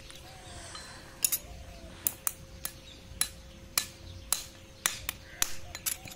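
A farrier's hammer tapping nails into an iron shoe on a bull's hoof: a string of short, sharp taps, roughly two a second.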